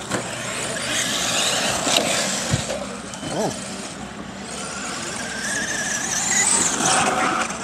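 Electric radio-controlled cars driving on a dirt track: motor and gear whine rising and falling with the throttle over the noise of tyres on loose dirt. The whine climbs in pitch about five to seven seconds in as a car accelerates.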